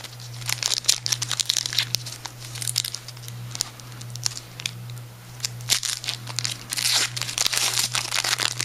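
A trading-card pack wrapper being torn open and crinkled, with short sharp crackles and rustling throughout, over a steady low hum.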